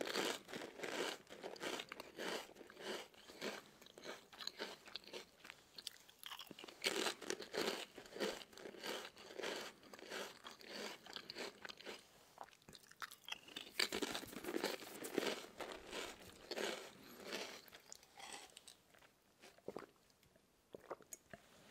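Close-miked crunching and chewing of Lay's potato chips: a dense run of crisp, crackly crunches that thins out near the end.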